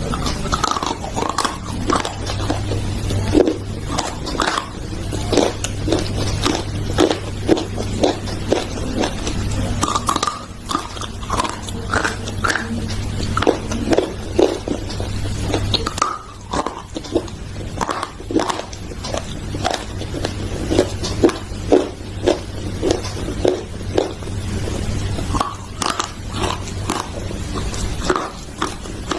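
Close-up crunching as something hard and brittle is bitten and chewed, a rapid, irregular run of crisp crunches with short pauses, over a steady low hum.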